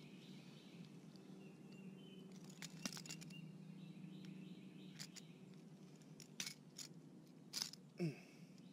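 Faint, irregular metal clicks and clinks of pliers gripping and working a buzzbait's hook free from a bass's mouth.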